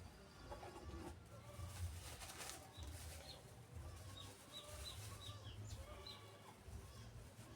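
Faint animal calls, with a series of short, high bird chirps repeating in the middle of the stretch.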